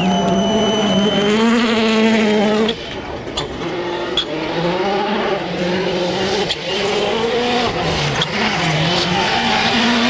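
World Rally Car 1.6-litre turbocharged four-cylinder engines, driven flat out on a gravel stage. The engine note climbs and falls again and again through gear changes, with several sharp cracks along the way. The loudness drops suddenly about three seconds in as the engine sound changes.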